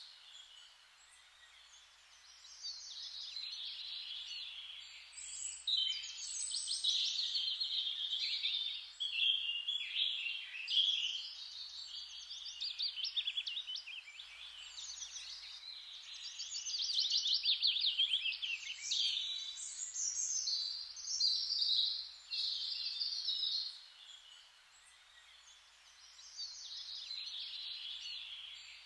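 Songbirds singing: quick trilled and warbled phrases, one after another, with short pauses between them, over a faint steady background hiss.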